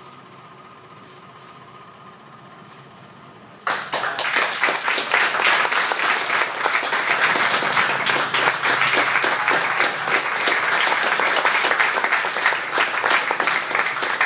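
A faint steady hum, then a group of people suddenly breaks into applause about four seconds in and keeps clapping.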